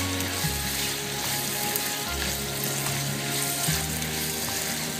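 Beef and tomato masala sizzling in coconut oil in a pan over a high flame, stirred with a spatula as the stock cooks down: a steady frying hiss.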